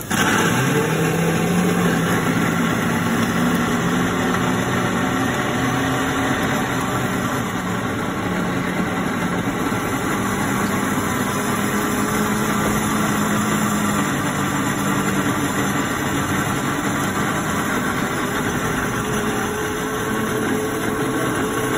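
Self-serve milkshake blending machine running, its spindle motor making a loud, steady hum inside the closed chamber while it blends a shake in the cup. The pitch of the hum steps up and down several times as the blend goes on.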